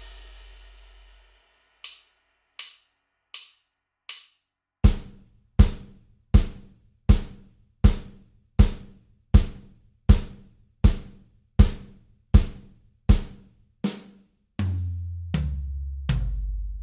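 Drum kit playing a simple quarter-note groove at about 80 beats per minute. A cymbal dies away, then four light hi-hat count-in clicks, then hi-hat, snare and bass drum struck together on every beat, about thirteen times. Near the end comes a short fill of three deeper, ringing drum hits.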